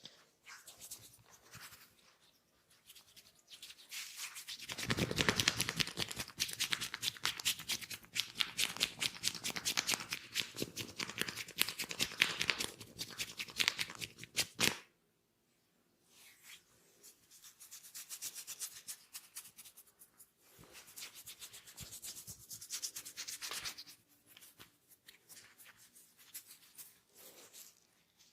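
Hands rubbing oiled skin in quick, rapid strokes during an oil body massage. The rubbing is loudest through the first half, stops suddenly about halfway, then resumes more softly.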